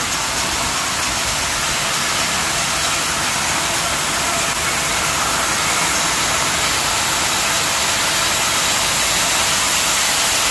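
Rows of bobbin-carrier rope braiding machines running: a steady, dense mechanical noise, growing slightly louder toward the end.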